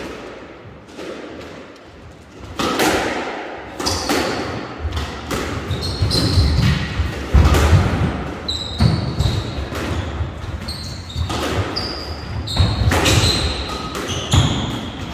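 Squash rally: the ball is struck by the racquets and smacks against the walls and floor in sharp repeated hits echoing around the court, with short high squeaks of shoes on the wooden floor. The rally gets going about two and a half seconds in.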